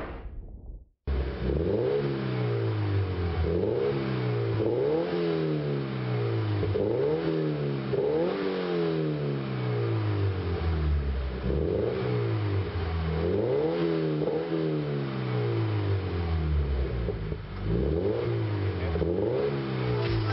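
Scion FR-S's flat-four boxer engine being free-revved through an ARK DT-S cat-back exhaust: about a dozen throttle blips, each pitch rising and then falling back, one every second and a half to two seconds. A short whoosh comes first, then the revving starts about a second in.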